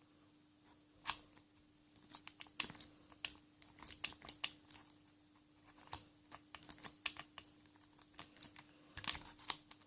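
Irregular small clicks and ticks of metal padlock parts being handled and fitted by hand during reassembly of a Lockwood padlock, over a faint steady hum.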